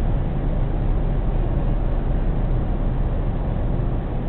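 Steady low rumble of a car's engine and tyres heard inside the cabin while driving on a motorway.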